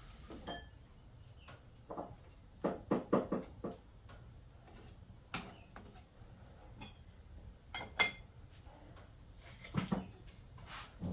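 Irregular knocks and clatter of things being handled, with a quick run of about five knocks some three seconds in. A steady high insect drone, like crickets, runs beneath.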